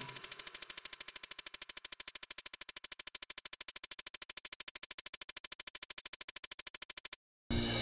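Background music: an even electronic pulse, about ten beats a second, which cuts off suddenly near the end.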